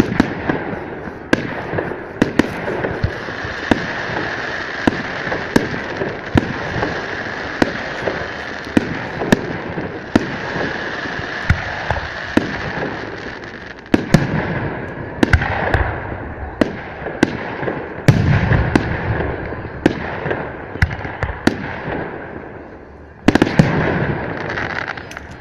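Fireworks display: a rapid, irregular string of sharp bangs from bursting shells over a continuous crackle, with heavier booms near the middle and again near the end.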